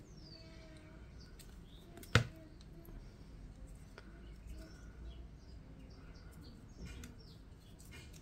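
Quiet room noise with faint bird chirps, one sharp click about two seconds in, and a few lighter clicks later while glue and paper are handled.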